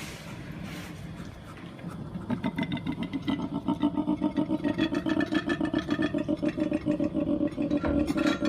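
A large animal's low call made of fast, even pulses, like a rattling snore, growing louder about two seconds in.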